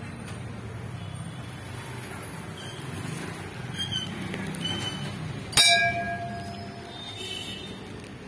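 A metal temple bell struck once, ringing and fading over about a second and a half, against a steady low background murmur.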